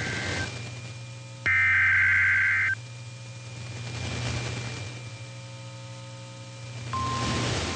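Emergency Alert System SAME header data bursts, harsh warbling digital tones over radio static: one burst ends just after the start, and another lasts just over a second from about a second and a half in. About seven seconds in, the steady single-pitch NOAA Weather Radio warning alert tone begins.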